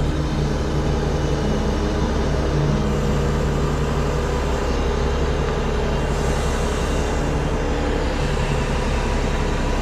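Grapple truck's engine running steadily under hydraulic load as the knuckle boom lifts and swings a heavy uprooted oak stump.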